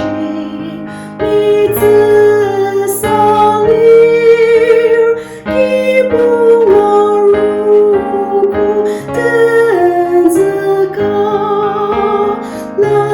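A woman singing a slow song with held notes over keyboard accompaniment.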